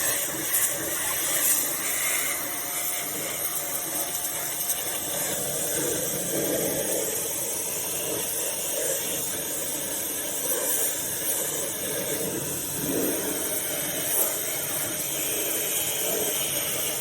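Pressure washer spraying: a steady hiss of high-pressure water.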